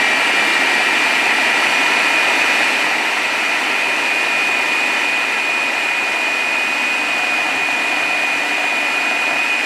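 Electric food chopper running at full speed, its motor giving a steady high whine as it blends a thin mix of cooked lentils and chicken korma into haleem.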